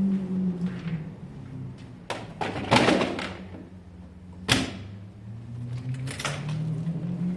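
Piaggio Fly scooter engine running, its note dipping and then rising again as the revs change. Several sharp knocks and clatters, the loudest about three and four and a half seconds in.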